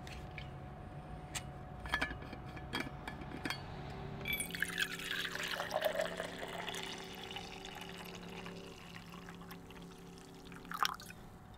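Cap of an insulated bottle twisted open with a few clicks, then hot coffee poured from it into a stainless-steel insulated tumbler for about five seconds. One sharp knock comes right at the end.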